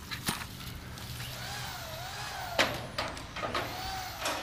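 Sheet-metal carport trim being handled and fitted, giving scattered sharp knocks and clanks, the loudest about halfway through.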